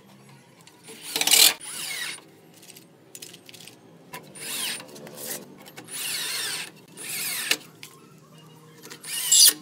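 Cordless drill run against the wooden pallet bed frame in about four short bursts, each spinning up with a rising whine. The last burst is the loudest.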